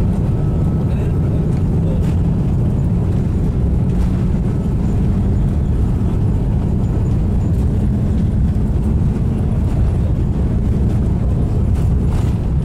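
Jet airliner cabin noise while taxiing: a steady low rumble of the engines and rolling wheels heard inside the cabin, with a faint steady hum and no spool-up.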